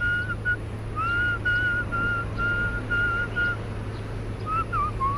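A run of clear, even whistled notes on one pitch, about two a second with short gaps, breaking off a little past halfway; near the end a lower, wavering whistle begins. A steady low hum lies beneath.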